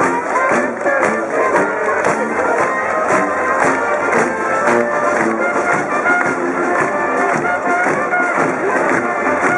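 Dixieland marching band playing as it walks: sousaphone, trombone, trumpets and banjo over a steady beat.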